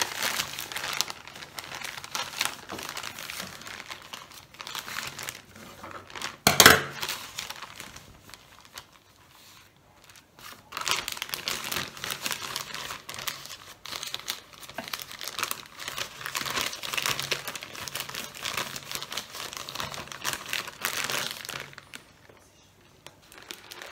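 Thin plastic zip bag crinkling as nests of starch-dusted fresh egg noodles are handled and packed into it, in two spells with a lull between. A single louder knock about six and a half seconds in.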